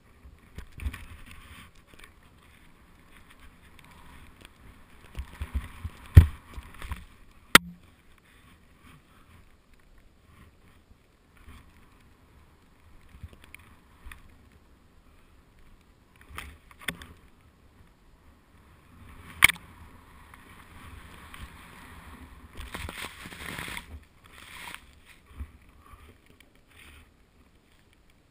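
Deep powder snow hissing and spraying under a rider descending through it, heard from a helmet-mounted camera with low wind rumble on the microphone. Several sharp knocks come through, the loudest about six, seven and a half, and twenty seconds in.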